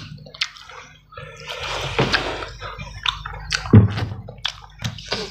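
Close-up wet eating sounds from hand-eating rice and saucy chicken: irregular squelches, lip smacks and chewing clicks.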